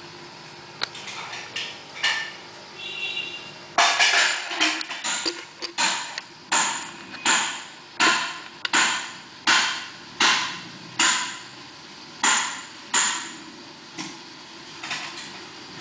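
Repeated sharp knocks, each with a short ring: a few light ones in the first seconds, then loud, evenly spaced strokes about every three quarters of a second from about four seconds in until shortly before the end.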